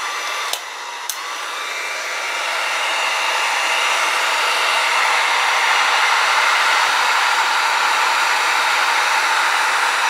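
Electric heat gun blowing steadily, growing louder over the first few seconds, with a couple of light clicks in the first second. It is heating a solder-seal heat-shrink connector to melt the solder and shrink the sleeve over a wire splice.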